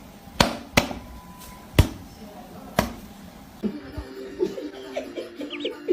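Four sharp knocks or taps, unevenly spaced over the first three seconds, then quieter voice-like sounds with a little laughter.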